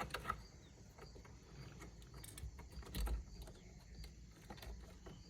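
Faint, scattered plastic clicks and small rattles from a Nissan 350Z's steering-wheel wiring connectors as they are unplugged.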